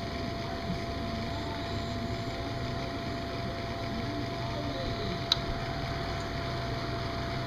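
Steady, even hum of an electric blower fan keeping an inflatable finish arch up, with a thin constant whine over it. A single sharp click sounds about five seconds in.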